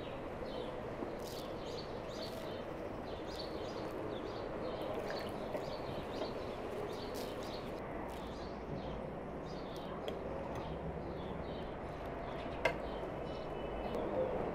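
Small birds chirping again and again over a steady outdoor background hiss, with one sharp click near the end.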